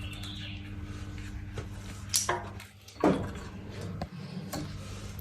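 Parts and tools being handled on a workbench, with a few knocks about two and three seconds in, over a steady low hum.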